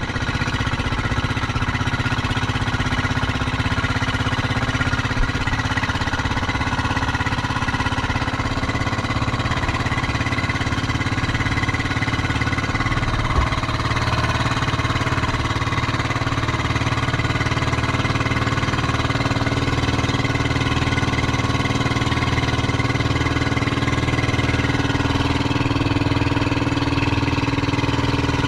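Small boat engine of a motorized bangka running steadily at constant speed, with an even low drone throughout. A single sharp tap sounds about halfway through.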